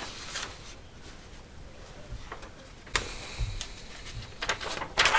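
Paper rustling and crackling as the large fold-out schematic sheets of a spiral-bound manual are folded and pages turned, with a sharper crackle about three seconds in and a busier run of rustling near the end.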